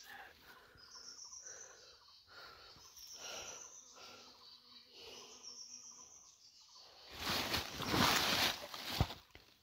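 Quiet forest ambience with a high pulsing trill in short bursts every couple of seconds. About seven seconds in, a loud rustling of dry leaf litter and handling noise lasts about two seconds and ends with a sharp thump.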